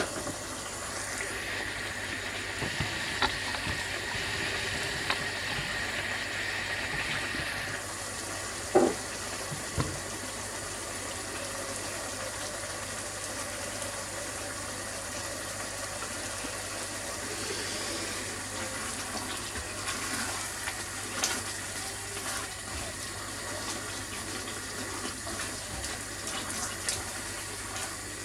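Steady hiss of a pan of chicken curry cooking on the hob, a little louder over the first several seconds, with two sharp knocks about nine and ten seconds in.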